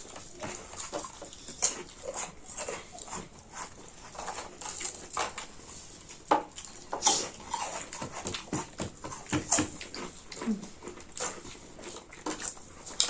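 Close-miked eating sounds: chewing and lip smacking with irregular wet clicks and crunches, as people eat curry, rice and chips by hand.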